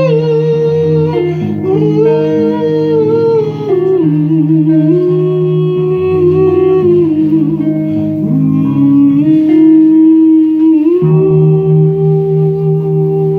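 Instrumental guitar music: a sustained, gliding melody line that slides between held notes over a steady low drone, the outro of a folk song.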